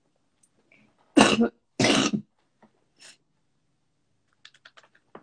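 A woman coughing twice in quick succession, about a second in.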